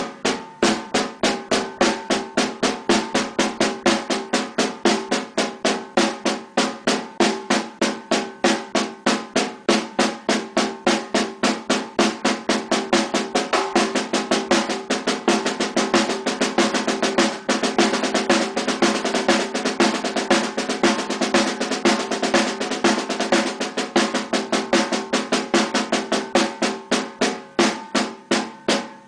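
Snare drum played with wooden drumsticks in a hand-technique exercise: steady single strokes speed up into a near-continuous roll through the middle, then slow back to separate strokes near the end, with the drum ringing under the hits.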